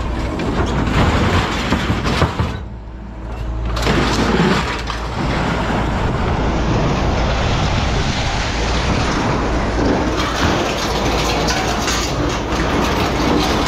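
A metal stove and other junk being shoved off a truck bed, scraping and crashing, with a sharp bang about two seconds in, over a steady low rumble.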